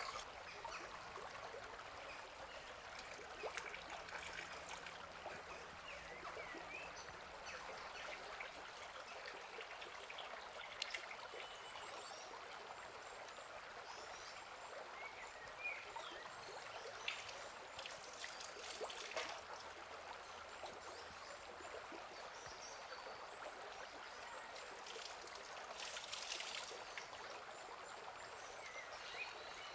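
Steady, faint rushing ambient noise, with a few short faint chirps scattered through it and a couple of brief swells.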